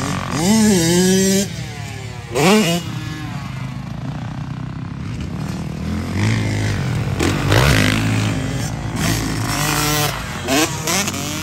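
Motocross dirt bike engines revving up and down as the bikes ride past on the track, in several rising and falling surges of pitch, the loudest near the start.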